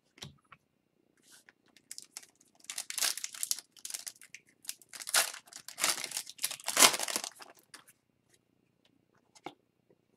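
Foil wrapper of an O-Pee-Chee Platinum hockey card pack being torn open and crinkled by hand: irregular crackling rustles, loudest in the middle stretch, then a few faint clicks near the end.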